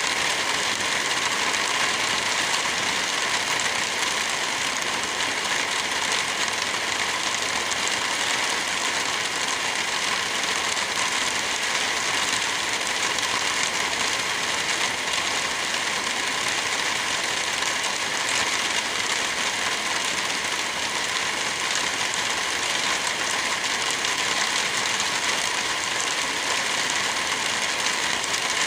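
Steady rain, an even hiss that does not let up.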